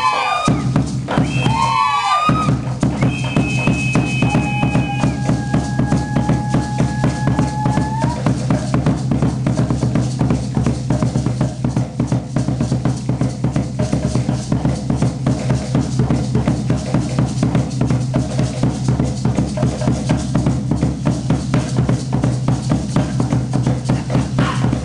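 Drums beating fast and steadily to accompany a dance. In the first two seconds a few shrill whistled cries rise and fall, and from about three to eight seconds long high whistle tones are held over the drumming.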